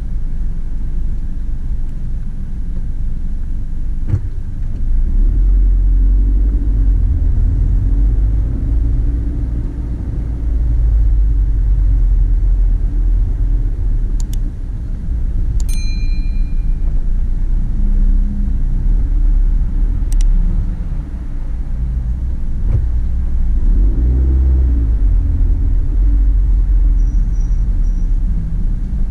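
A car driving through town: a steady low rumble of engine and tyres that swells and eases with speed. A few sharp clicks cut through, one at about 16 s with a short, high ring.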